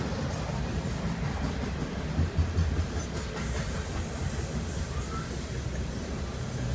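Freight train cars rolling past, a steady low rumble with wheel clatter and a few louder knocks about two seconds in, heard from inside a car.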